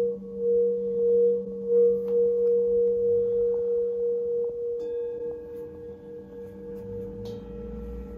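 Metal singing bowls ringing: a deep, held hum with a slow pulsing wobble. Fresh strikes about two seconds in, near five seconds and again near seven seconds add higher ringing tones over it, and the sound slowly fades.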